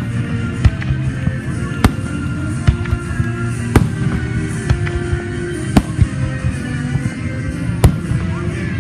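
Fireworks going off with sharp bangs about once a second, with music playing underneath.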